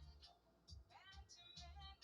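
Faint background music with a steady bass beat and a singing voice.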